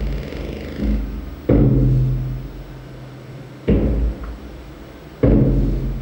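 Electronic music: deep pitched percussive hits, three loud ones roughly every second and a half to two seconds, each striking suddenly and then ringing and fading, with a smaller hit about a second in.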